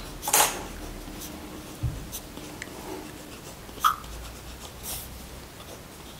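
Pen writing on paper, quiet and scratchy, with a low knock on the table about two seconds in and a short stifled laugh about four seconds in.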